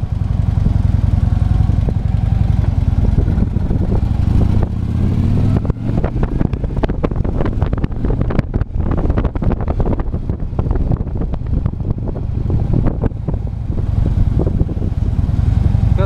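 Wind buffeting a helmet chin-strap microphone on a moving Harley-Davidson motorcycle, with the V-twin engine running underneath as a steady low rumble. The wind noise turns gustier and more crackly from about six seconds in until near thirteen seconds.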